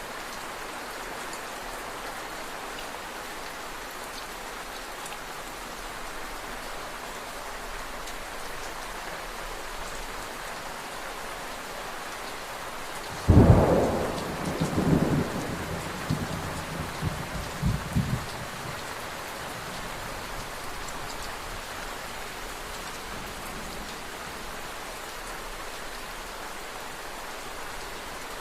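Steady rain falling, with a sudden thunderclap about halfway through that rolls on in several rumbles for about five seconds before the rain alone is left.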